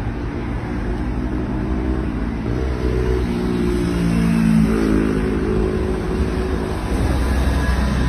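City bus driving past a stop without pulling in. Its engine note rises and falls as it goes by, loudest in the middle, over a steady low rumble of traffic.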